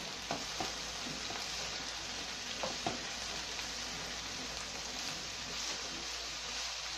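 Broad beans and chopped onion sizzling steadily in oil in a frying pan, stirred with a wooden spoon that gives a few light knocks against the pan.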